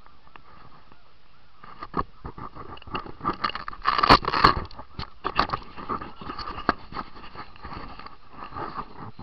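Close handling noise: irregular scraping, crunching and knocking as the camera is shifted and bumped. It starts about two seconds in, is loudest around four seconds in, and thins out towards the end.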